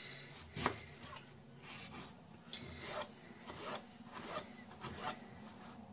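Kitchen knife slicing a peeled raw potato into rounds on a plastic cutting board: a steady run of faint crisp cuts, roughly two a second, each ending with the blade tapping the board.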